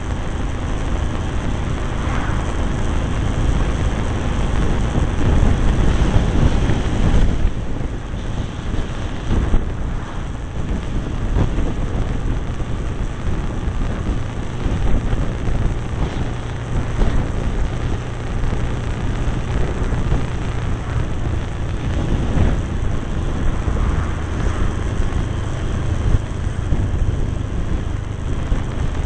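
Wind rushing and buffeting over the microphone of a camera on a moving Cagiva Navigator motorcycle, with the low drone of the engine and road noise underneath.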